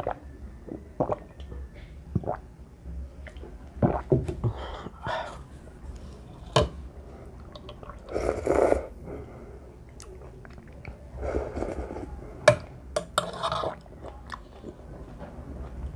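Close-up eating sounds of a bowl of cheese ramen: chewing, and slurps of broth off a ceramic spoon, the longest about eight and a half seconds in and a few more near the end. Sharp clicks and taps of the spoon against the ceramic bowl come throughout.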